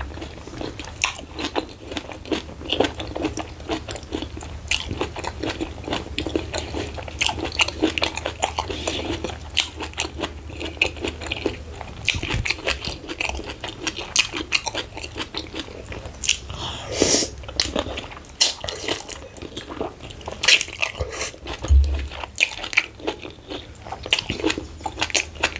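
Close-miked chewing of a mouthful of meat and ogbono soup, with many small wet mouth clicks and smacks throughout.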